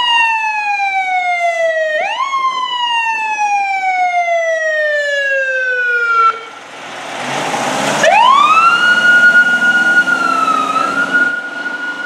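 Sirens of fire apparatus responding: a siren sweeps up quickly and falls slowly in two long wails that die away. After a rush of vehicle noise, a siren climbs again and holds a steady high tone, dipping briefly near the end.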